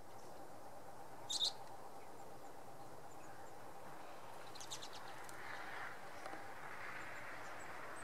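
Small songbirds giving short high calls: one about a second and a half in and a few quick ones near five seconds, over a steady distant background hum.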